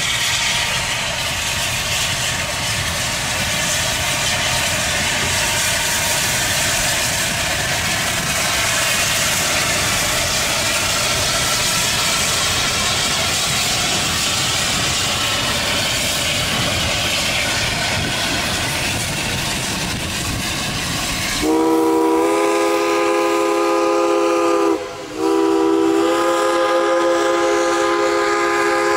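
Heritage passenger train rolling past with a steady rushing noise of wheels on the rails. About two-thirds of the way in, a loud, chord-like train whistle sounds, breaks off briefly, then sounds again and is held.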